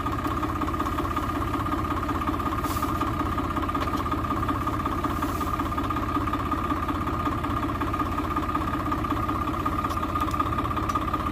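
Swaraj tractor's diesel engine running steadily, with an even, unchanging note.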